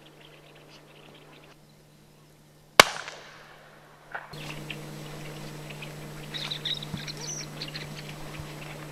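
A single shotgun shot about three seconds in: one sharp, loud crack whose echo dies away over about a second. Faint short high chirps follow.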